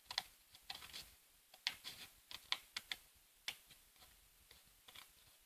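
Scissors snipping through thin cardboard: a dozen or so faint, short cuts at an uneven pace as a cardboard piece is trimmed.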